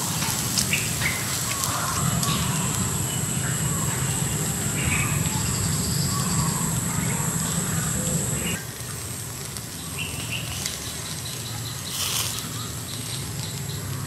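Small birds chirping in short, scattered calls over steady outdoor background noise. A steady high tone and a low rumble in the background stop suddenly about eight and a half seconds in.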